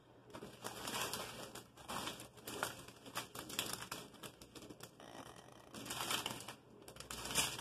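Small clear plastic zip bags of diamond-painting drills crinkling and rustling as they are handled and laid down on a table, with irregular light clicks and taps.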